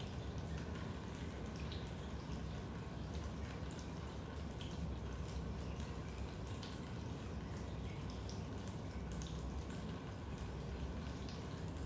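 Raindrops dripping into a basement: irregular water drips, several a second, over a steady low rumble.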